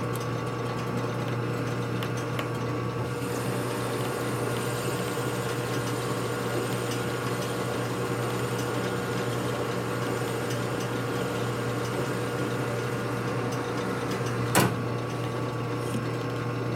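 Metal lathe running steadily while a lifter is dressed in its chuck, with one sharp click near the end.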